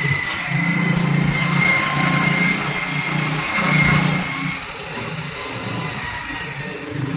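A small motor running steadily, with a thin high whine over a low hum.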